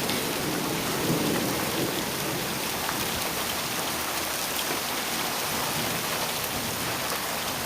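Steady rain falling on the ground, an even hiss with a few scattered drop ticks.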